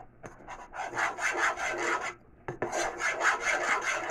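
A utensil stirring and scraping around a pot of cornstarch and powdered-milk mixture as it cooks into a paste. The scraping comes in two bursts of rapid strokes, the first about a second in and the second from about two and a half seconds in.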